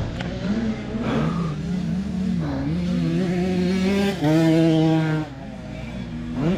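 Dirt bike engine revving up and down, its pitch rising and falling, loudest for about a second near the middle.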